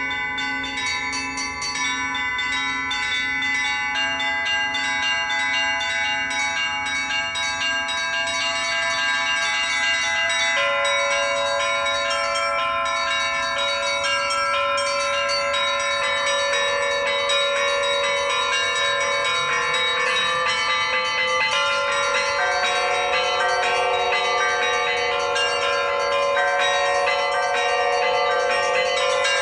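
A set of Russian church bells from the LITEKS foundry being rung together in a peal: small high bells struck in quick succession over long-ringing middle tones. Lower bells join over the second half and the sound grows fuller.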